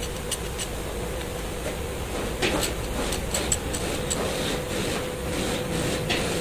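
Metal clinks and taps of a wrench working a threaded coil spring compressor on a strut's coil spring, a few sharp clicks a second or two apart, over a steady hum.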